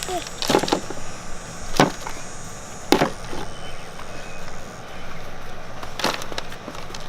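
A few sharp knocks and clatters, spaced a second or more apart, with the first a quick double knock.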